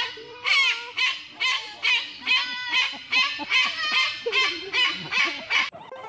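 White cockatoo screeching: a run of about a dozen harsh, loud calls, roughly two a second, ending shortly before the end.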